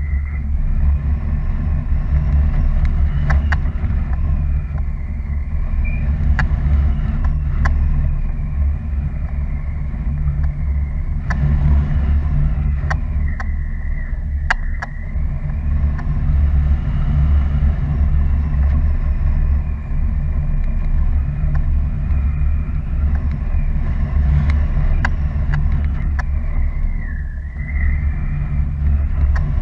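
Wind rushing over the camera microphone during a paraglider flight, a steady heavy rumble, with a faint high whistle that rises and falls and a few scattered clicks.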